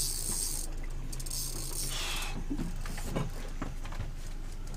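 Fishing reel being cranked with its ratchet clicking as a hooked salmon is reeled in toward the boat, over a steady low hum.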